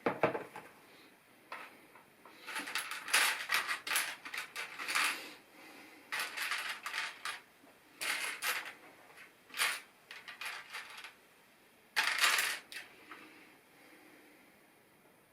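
Small plastic LEGO pieces clattering and rattling under handling, in several bursts of quick clicks with short pauses between.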